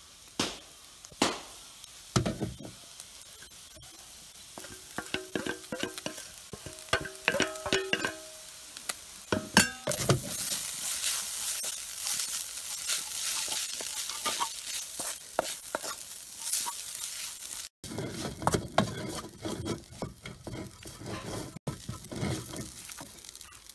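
Wooden spatula stirring and scraping shredded chicken masala in a stainless steel pan while it fries, with a sizzle. A few knocks make the pan ring briefly, and a steady sizzling hiss runs through the middle stretch.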